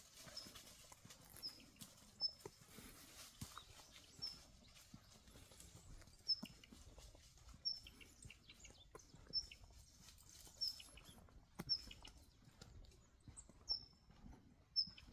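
Border collie's excited high-pitched whistle: short, bird-like squeaky chirps repeated about once a second, with faint clicks in between.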